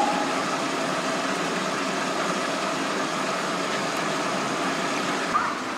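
Steady rushing hiss of hot-spring water running into an outdoor foot bath.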